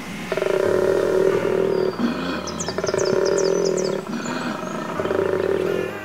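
Male koala bellowing, the breeding-season mating call: three long, deep, pulsing calls of about a second and a half each, with short in-breath sounds between them. A bird chirps quickly several times around the middle.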